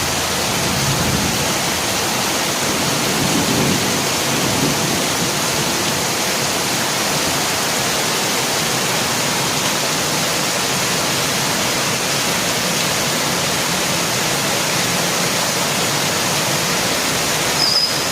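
Heavy rain pouring steadily. A brief high-pitched sound comes near the end.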